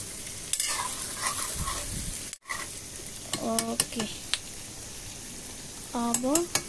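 Capsicum and onions sizzling in hot oil in an iron kadai, with a ladle scraping and clicking against the pan as they are stirred. Two short cries with a rising pitch come through, one about halfway and one near the end.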